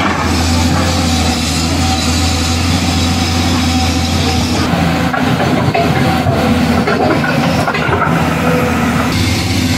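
A steady heavy engine drone with a strong low hum. The upper hiss thins out for a few seconds past the middle.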